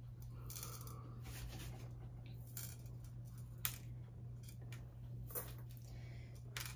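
Light handling of small plant pots and decorative gravel: scattered soft clicks and rustles, with one sharper click about halfway through, over a steady low hum.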